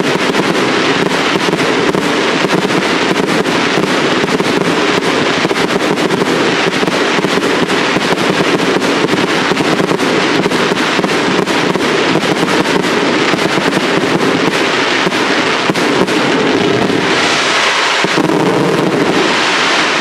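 Fireworks display: a dense, unbroken crackle of many rapid small pops and bursts, growing louder near the end.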